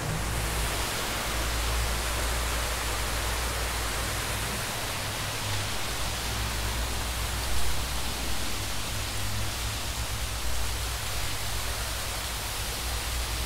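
Steady rushing noise with a low rumble underneath.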